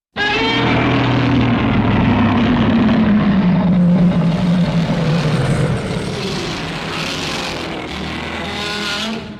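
Godzilla Terrestris roar sound effect: a long, harsh creature roar that starts abruptly and slides slowly down in pitch over about six seconds, then carries on a little quieter and rougher before trailing off at the end.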